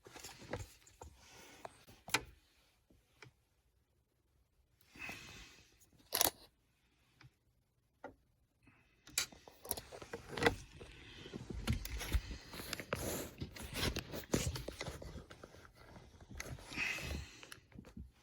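Scattered clicks and scraping, rustling handling noises, broken by short gaps of dead silence, then busier and more continuous from about nine seconds in.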